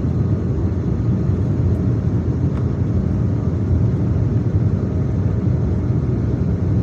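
Steady low rumble of an Embraer E190-E2 airliner heard from inside the cabin.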